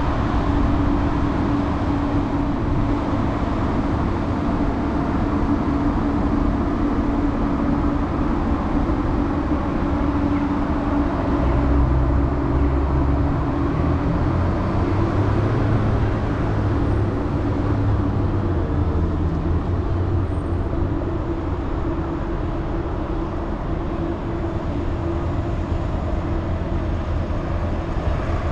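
Downtown street traffic: a steady wash of engine and tyre noise with a held engine hum, and a deeper engine rumble from a passing vehicle building about twelve seconds in and fading by about twenty seconds.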